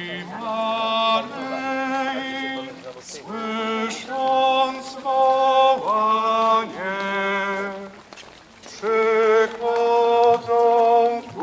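Voices singing a slow religious hymn on long held notes, in phrases with short breaths between them.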